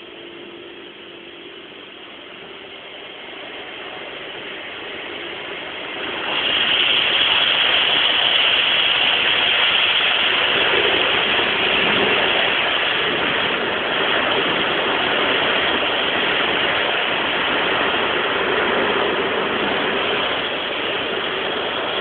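Automatic car-wash machine heard from inside the car: a rising mechanical hum, then about six seconds in the washing hits the car and a loud, steady rushing noise sets in and keeps going.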